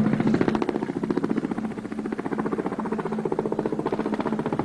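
Tandem-rotor helicopter flying low past, its rotor blades beating in a rapid, even rhythm over a steady engine tone.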